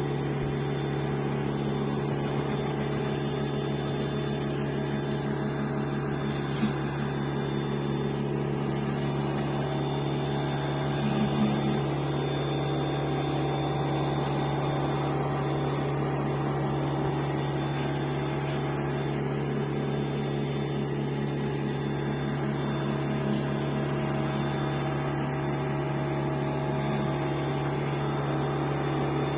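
Electric pressure washer running with a steady hum.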